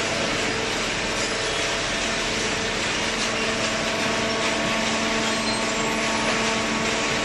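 Horizontal hydraulic baling press running: a steady hiss of machinery with an even, unchanging hum from its motor and hydraulic pump.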